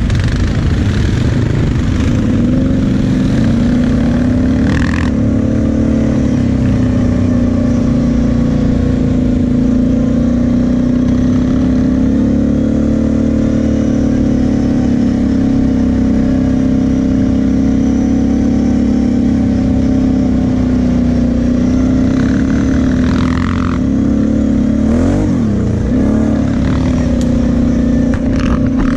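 Sport quad's engine running at a steady, moderate throttle while riding, its pitch mostly even with a brief wobble, easing off and picking up again, a little before the end.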